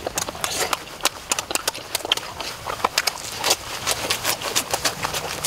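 Boiled duck eggshells cracking and crackling as they are peeled by hand: a quick, irregular run of sharp clicks.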